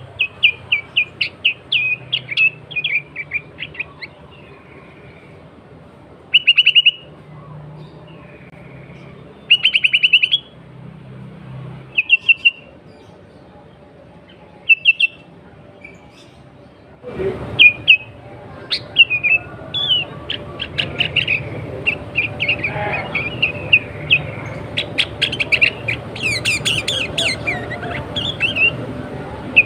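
Sooty-headed bulbul calling: phrases of short, quick chattering notes with gaps between them. From a little past halfway the notes come thicker over a louder background noise.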